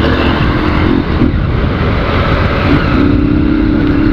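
Honda CG 150 Sport's single-cylinder four-stroke engine running with its air filter removed and stock exhaust, heard while riding. Its steady note drops away about a second in and returns near three seconds, over a constant rush of wind and road noise.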